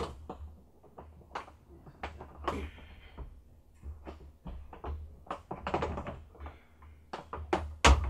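Plastic parts and hose of a portable twin-tub washing machine being handled and fitted: irregular clicks, knocks and short rustles, with a sharper knock near the end, over a steady low rumble.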